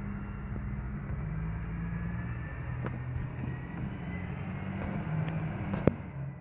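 Mercedes bin lorry's diesel engine running steadily, heard muffled through a closed window, with a sharp click near the end.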